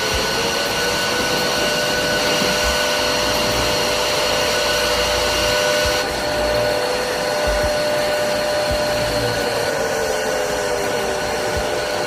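Jet aircraft noise heard inside the cockpit: a loud, steady rush of air with an engine whine made of several held tones. Near the end one of the whine tones sinks in pitch.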